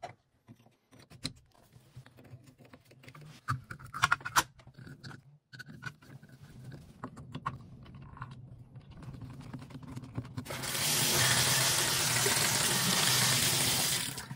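A few clicks and knocks of a shower valve's trim and handle being fitted, then about ten seconds in water rushes on through a newly replaced Moen Posi-Temp pressure-balancing valve, runs steadily for about four seconds, and cuts off sharply near the end as the valve is tested.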